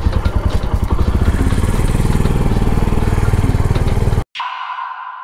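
Motorcycle engine running at low revs with a rapid, even beat. About four seconds in it cuts off abruptly, and a ringing tone follows and fades away.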